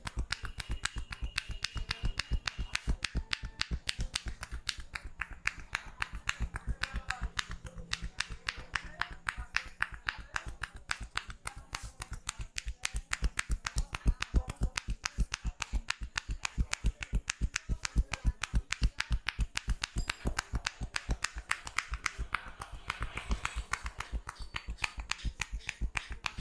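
Barber's hands tapping and slapping the head rapidly in an Indian head massage: a steady train of crisp percussive slaps, about five or six a second, running without a break.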